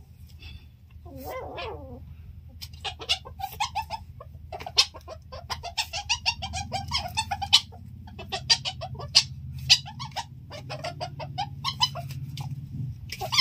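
Asian palm civets play-fighting, giving quick runs of short, sharp clucking and chattering calls, with a low steady rumble underneath from about six seconds in.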